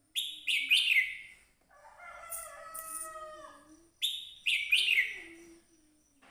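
Red-whiskered bulbul singing: two short phrases of quick, sharply falling whistled notes, one near the start and one about four seconds in, with a longer, lower drawn-out call of about two seconds between them.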